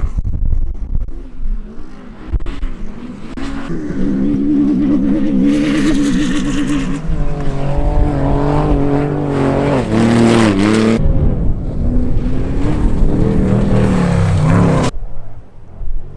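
Off-road race vehicle's engine revving hard, its pitch climbing and dropping with the throttle, then cutting off suddenly near the end.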